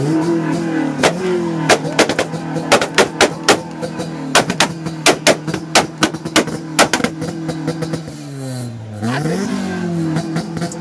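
Car engine held steady at a two-step launch rev limiter, its exhaust popping sharply many times over a steady drone. Near the end the revs drop off briefly, then climb back up to the limiter, and the pops resume.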